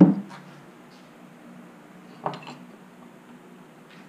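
Hard workshop pieces being handled and set in place: a sharp knock right at the start, then a lighter clack a little over two seconds later.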